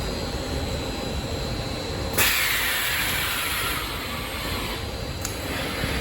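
Steady low hum of mattress-making machinery, with a sudden sharp hiss of compressed air venting about two seconds in that fades away over the next two seconds, and a short click near the end.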